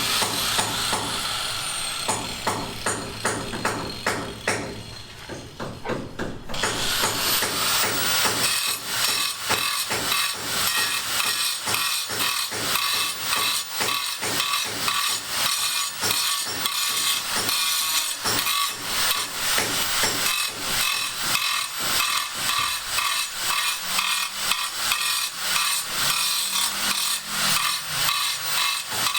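Construction work with hand tools: a long run of short knocks like hammering, joined by a steady hiss of sawing or cutting from several seconds in.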